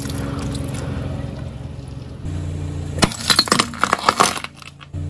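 Car engine running low and steady as the tyre rolls forward. About three seconds in, a quick run of sharp cracks and clinks as the tyre crushes and shatters a brittle blue plate, lasting about a second and a half.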